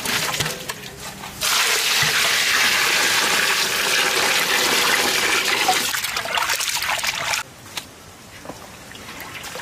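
A stream of water poured into a large aluminium pot full of chopped goat intestine, a steady rush for about six seconds that cuts off suddenly; the water is rinsing the intestine pieces. Just before it, a short rattle as the pieces slide out of an aluminium basin into the pot.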